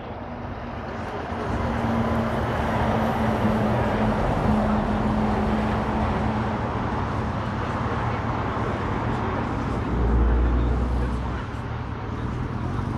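Airfield fire and rescue vehicle driving along the runway edge, a steady vehicle noise that swells over the first two seconds and then holds. A deeper rumble comes about ten seconds in.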